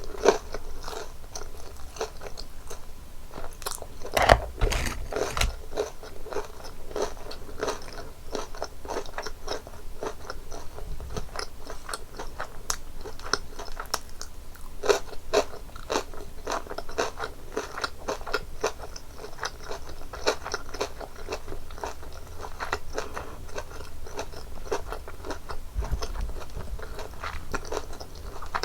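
Close-miked crunching and chewing of crispy breaded cheese tonkatsu: a rapid, irregular crackle of bites and chews throughout, with one louder crunching bite about four seconds in.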